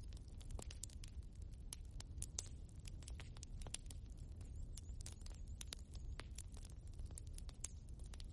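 Wood fire crackling in a fireplace: many irregular sharp pops and snaps from the burning logs over a steady low rumble of the flames.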